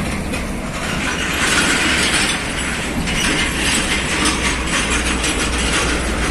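Heavy truck with a loaded lowbed trailer driving past close by: a low engine rumble under a steady rush of tyre and road noise, with the trailer rattling and clanking.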